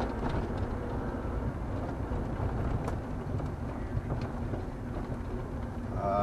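Road and engine noise inside a car's cabin as it drives along a narrow, rough country road, with a few faint ticks and rattles.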